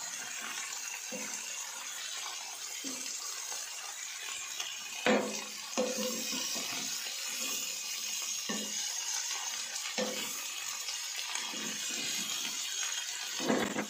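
Shredded cabbage and vegetables sizzling as they are stir-fried in chicken fat in a non-stick pan, with a steady hiss. A spatula knocks and scrapes against the pan now and then, loudest about five seconds in.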